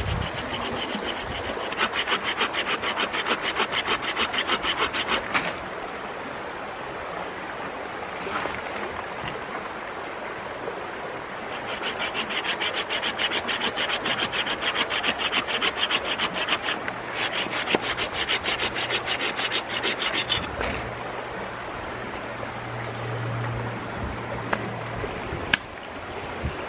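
Bahco folding saw cutting through a branch with fast back-and-forth strokes, in two spells with a pause between, over the steady rush of a creek.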